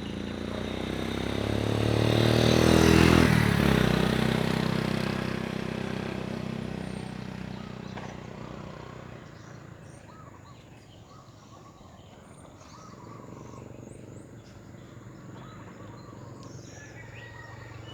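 A motor vehicle drives past: its engine grows louder to a peak about three seconds in, drops in pitch as it goes by, then fades away over several seconds. Faint bird calls follow in the quieter second half.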